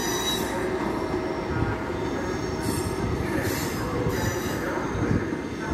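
Train running on the rails with a steady rumble, its steel wheels squealing briefly and high-pitched four times: once at the start, then three times in quick succession near the middle.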